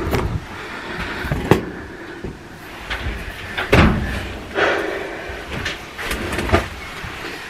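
Clothes being tossed into a top-loading washing machine: fabric rustling with a series of dull thumps and knocks against the machine, the loudest about four seconds in.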